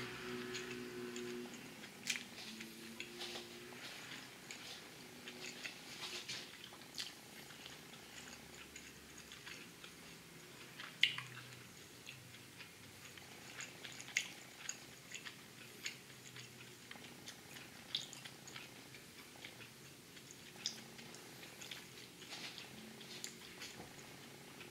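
A person chewing a bite of pan-fried rice-noodle egg pancake with pork chop close to the microphone: faint, irregular mouth clicks and smacks.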